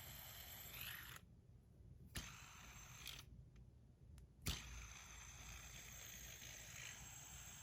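Near silence with a couple of small clicks from a bar spinner being handled in the fingers, the louder one about four and a half seconds in.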